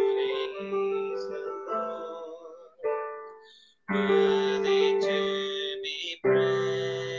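Slow piano chords, each struck and left to ring and fade, with a new chord about three and four seconds in and another near the end.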